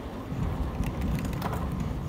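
Wind buffeting the microphone and road rumble from a bicycle rolling along an asphalt street, with a few light clicks and rattles.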